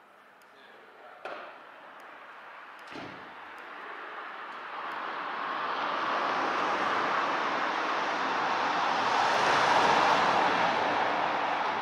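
A long rushing noise with no pitch that swells over several seconds, loudest about ten seconds in, then begins to fade. Near the start come two sharp knocks, the second with a low falling thud.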